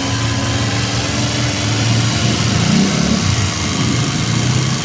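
Suzuki Every DB52's three-cylinder engine idling steadily. The van has a misfire and a throttle position sensor fault (code P0120).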